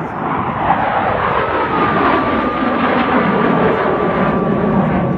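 Jet engines of a formation of four fighter jets flying past: a loud roar that builds over the first second and then holds, with a high whine that falls slightly in pitch as they go by.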